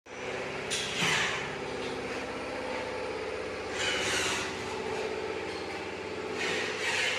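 A steady mechanical hum, like a running electric machine, with short hissing bursts about a second in, about four seconds in and near the end.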